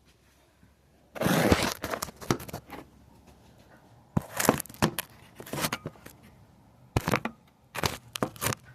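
Objects being handled: a burst of rustling or crinkling, followed by a series of short clicks and knocks in several clusters.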